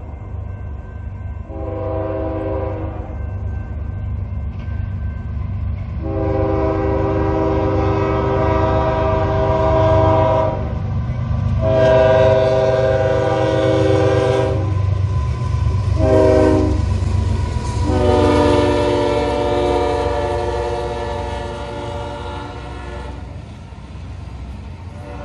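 Diesel freight locomotive approaching with a low engine rumble, its air horn sounding a chord in blasts: a short one, then the grade-crossing signal of long, long, short, long. The horn stops near the end as the freight cars roll past.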